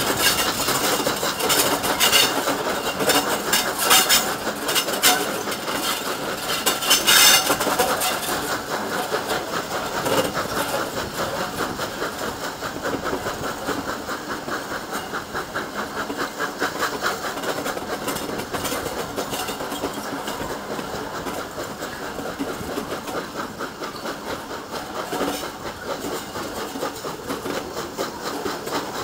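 GWR 0-6-0 pannier tank 4612 working a six-coach train away round a curve: the steam locomotive's quick, even exhaust beats with steam hiss, and the coaches' wheels clanking over rail joints, with several sharp clanks loudest in the first eight seconds or so.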